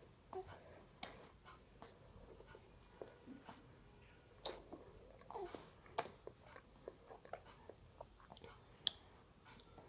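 Faint, irregular wet clicks and smacks of an infant sucking and swallowing formula from a baby bottle. A couple of brief small vocal sounds from the baby come through, one about five seconds in.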